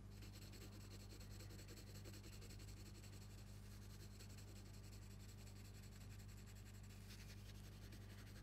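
Near silence with a steady low hum, under the faint scratch of a coloured pencil lettering on black card.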